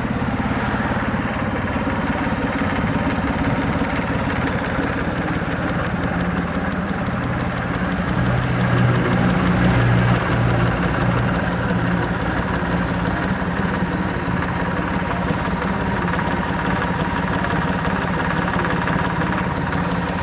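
Suzuki F6A EFi three-cylinder engine idling with a rapid, steady ticking, a noise traced to a fuel injector. It runs a little louder about eight to eleven seconds in.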